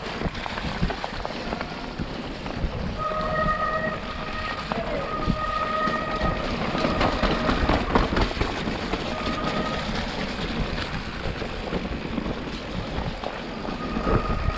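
Mountain bike ridden down a wet trail: a steady rumble and rattle from tyres and frame over rough ground, with a high pitched whine that comes and goes several times.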